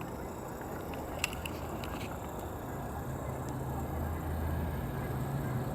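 A low, steady engine drone that grows louder from about halfway through, with a single sharp click about a second in.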